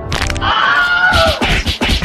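Comedy fight sound effects for a blow: a sharp crack right at the start, a falling tone, then a quick run of hard hits.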